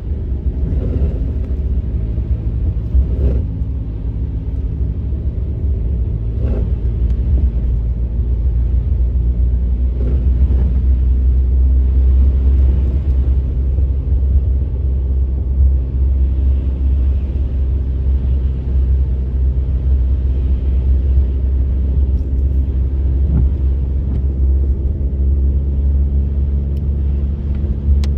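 Car interior noise while driving: a steady, low engine and tyre rumble, with a few faint knocks.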